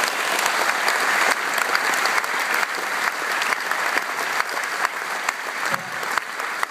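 Theatre audience and cast applauding: a dense clatter of many hands clapping that slowly fades.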